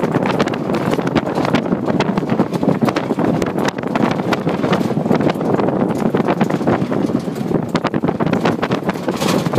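Wind buffeting the microphone in an open jeep driving on a rough dirt track, over a dense, irregular run of rattles and knocks from the jeep jolting over the ground.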